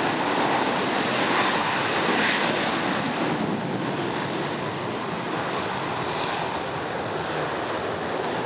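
F-16 fighter jets taking off in formation: the steady rushing roar of their jet engines at full power, easing slightly after about three seconds as they climb away.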